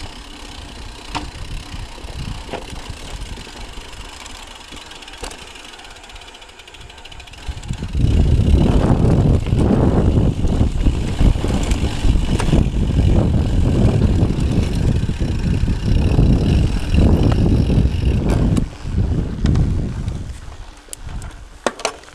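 Mountain bike rolling down a dry dirt trail: tyre and trail noise with the bike rattling and sharp clicks. About eight seconds in it jumps to a loud low rumble of wind and rough ground on the action-camera microphone, which eases off near the end.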